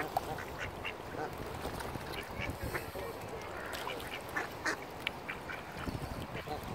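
Mallard ducks quacking, many short calls one after another over a steady background hiss.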